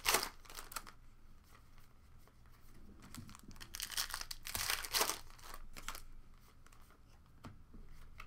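Foil trading-card pack being torn open by hand, its wrapper crackling and crinkling. The sound comes in spells: one right at the start and another around the middle, with quieter handling between.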